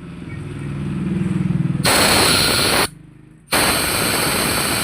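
Hissing blasts of compressed air from an air blow gun, one about a second long and a second starting about a second and a half later, over a low motor hum that swells in the first two seconds.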